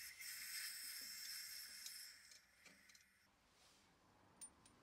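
Hiss of a spray blown through a thin straw nozzle into the freshly tapped threaded hole of a bandsaw wheel shaft. It stops about two seconds in, followed by a few faint clicks and a short tick near the end.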